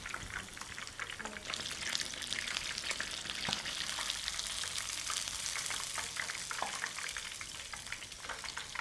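Breaded chicken katsu frying in hot oil, with a steady crackling sizzle that swells about a second and a half in.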